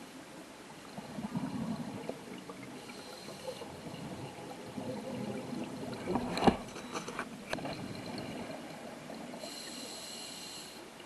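Scuba diver breathing underwater through a regulator: bubbly exhaust noise with two high hisses of the demand valve on inhalation. There are two sharp knocks about a second apart past the middle.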